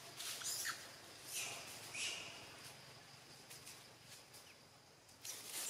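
Faint, short high-pitched animal chirps and squeaks, a few falling in pitch, in small clusters near the start, around two seconds in and again near the end, over a quiet outdoor background.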